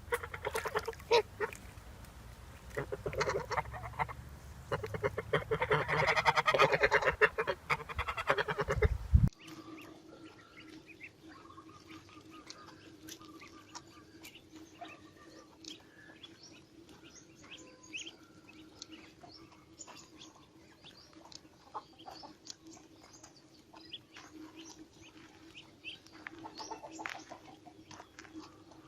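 Ducks quacking loudly and continuously for about nine seconds. The sound then cuts abruptly to a much quieter recording: a steady low hum with scattered clicks and faint short calls.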